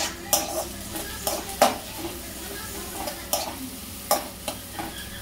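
Metal spatula scraping and knocking against a metal wok, about six irregular strokes, while sliced vegetables are stir-fried. A low sizzle of frying runs underneath.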